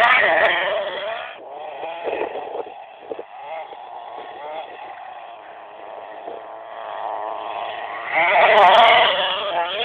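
CEN Genesis nitro RC monster truck's small glow engine running and revving, a high buzz whose pitch keeps rising and falling. It is loud at the start and again about eight seconds in, and fainter in between.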